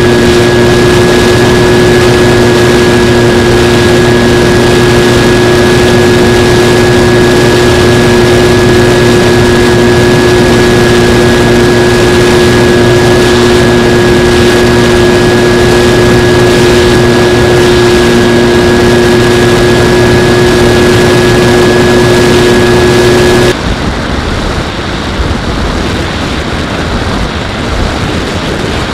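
Skywalker X-8 flying wing's motor and propeller running at one steady pitch under wind rush, heard through the onboard Mobius camera. About 23 seconds in, the motor tone cuts off abruptly and the level drops, leaving only wind noise.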